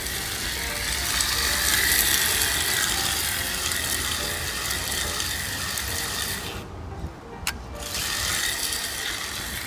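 Radio-controlled toy car's small electric motor and gears whirring and rattling as it drives, cutting out for about a second around seven seconds in with a single click, then running again.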